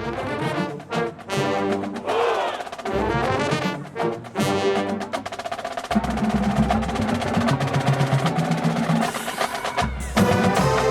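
Marching band playing: brass with drums and percussion. The first half is short, punched chords with breaks between them, and from about six seconds in the band holds a fuller, sustained low chord under the drums.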